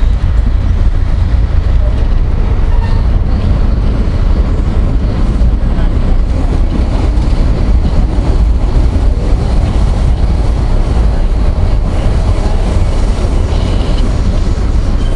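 Passenger train running at speed, heard from inside the coach: a steady, loud, low rumble of wheels and car.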